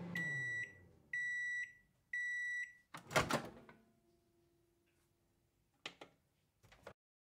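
Microwave oven finishing its cycle: the running hum winds down and drops in pitch, then three high beeps sound about a second apart. The door release clunks loudly as the door opens, followed by two faint knocks near the end.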